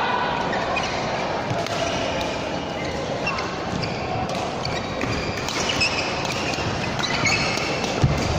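Badminton rally in a large hall: rackets striking the shuttlecock with sharp cracks, the loudest hit about eight seconds in, amid squeaking shoes on the court and crowd chatter.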